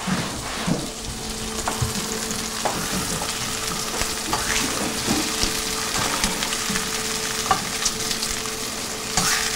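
Veal cutlets sizzling in hot oil in a sauté pan on a gas burner, a steady frying hiss with occasional light clicks of metal tongs against the pan.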